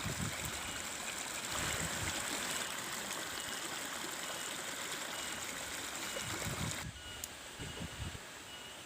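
Steady rushing of a flowing stream, with a faint high chirp repeating about twice a second; the rushing drops away sharply about seven seconds in.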